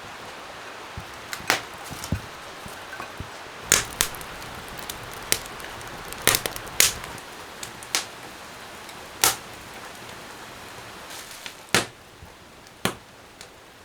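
Sharp knocks, like wood being struck or chopped, at uneven intervals of one to two seconds, over a steady hiss of rain.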